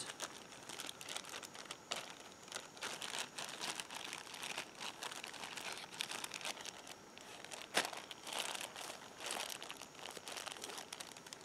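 Clear plastic zip-top bag crinkling and rustling as it is handled and folded by hand, with one sharper click a little past the middle.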